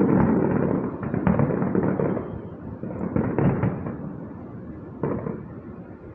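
Distant fireworks bursting: a dense run of booms and crackle that thins out after about two seconds, then a few separate bangs around one, three and five seconds in, with the sound dying down near the end.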